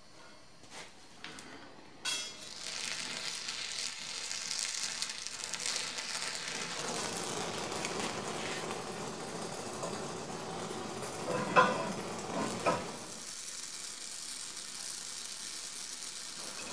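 Oxy-fuel gas torch flame hissing steadily as a broken lathe step pulley is heated and brazed, starting about two seconds in. A few short, louder knocks come about two-thirds of the way through.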